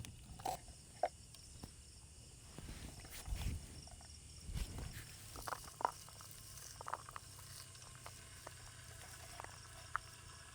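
Campfire burning quietly with sparse crackles and pops, over faint night insects chirping.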